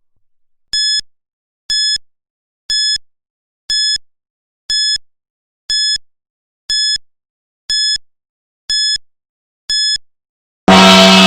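Countdown timer's ten-second warning: ten short, high electronic beeps, one a second, marking the last ten seconds. Near the end, as time runs out, a loud gong strikes and rings on.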